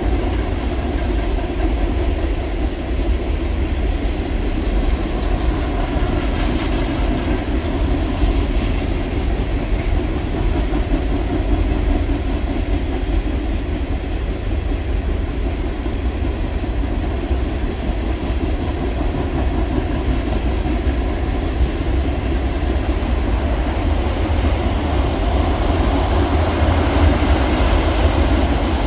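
Freight cars of a Norfolk Southern mixed train rolling across a rail bridge: a steady rumble of steel wheels on the rails, growing slightly louder near the end.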